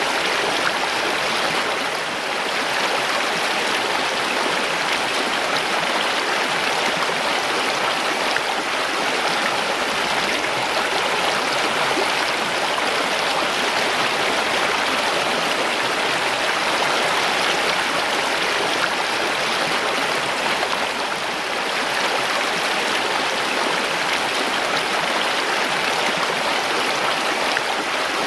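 A mountain stream running steadily over rocks, a continuous rushing and splashing of water.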